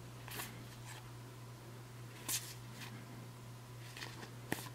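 Faint sliding and flicking of paper game cards handled and sorted by hand: a soft stroke about half a second in, a louder one a little past two seconds, and another near the end, over a low steady hum.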